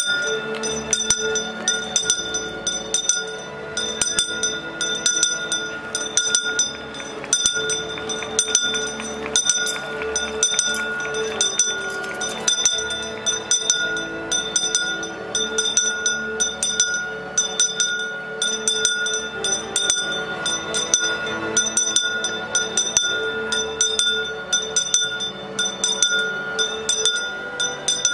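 Small altar bells rung continuously during benediction with the raised monstrance, a steady jangle of many strikes each second over a lingering ring.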